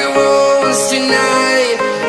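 Music: a pop song with held melody notes, playing at a steady level.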